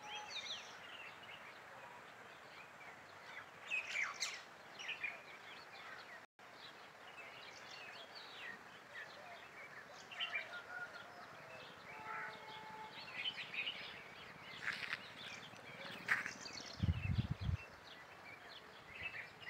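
Several birds chirping and calling, short scattered notes over a faint steady background hiss. A couple of short low thumps come near the end.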